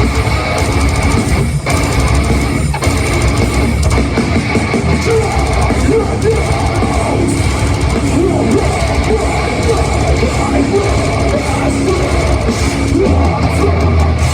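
Heavy metal band playing live in an arena: loud distorted electric guitars over a pounding drum kit.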